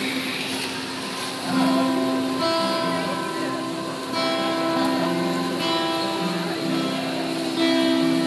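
Amplified live music from a street band. A melody of held notes enters about a second and a half in, over steady street noise.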